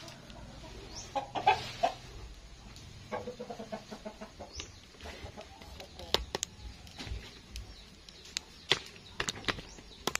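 Chickens clucking in short pitched calls, with a scatter of sharp clicks and knocks through the second half.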